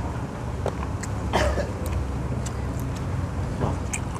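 Background of a busy street food court: a steady low rumble like road traffic, with scattered short clicks and clatter.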